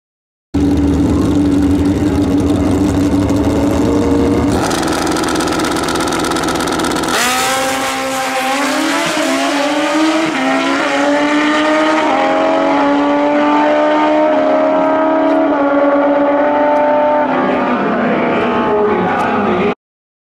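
Drag-racing motorcycle engines held at a steady high rev, then launching hard about seven seconds in. The pitch climbs in steps, dropping back at each gear shift as the bikes pull through the gears, and the sound cuts off abruptly near the end.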